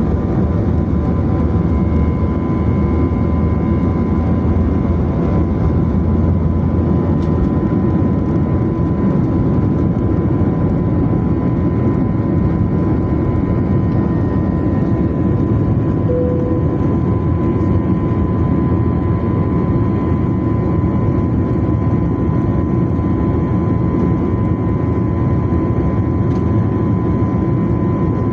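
Jet airliner's engines and rushing air heard from inside the cabin during takeoff: a loud, steady roar with a thin, steady whine above it.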